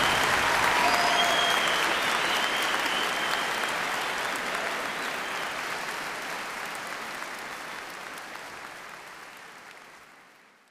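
Large audience applauding, fading out steadily to silence near the end.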